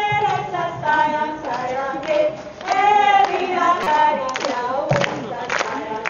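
A group of voices singing a song in unison with long held notes. Sharp hand claps join in a steady rhythm about four seconds in.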